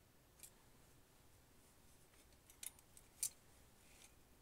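A few faint, sharp metallic clicks from the parts of a cassette deck's tape transport mechanism being handled. The loudest comes a little over three seconds in.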